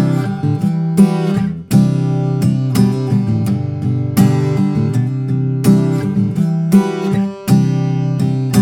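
Taylor GS Mini-e Mahogany acoustic guitar, with a mahogany top and sapele back and sides, strumming chords that ring out, with short breaks about a second and a half in and again near the end.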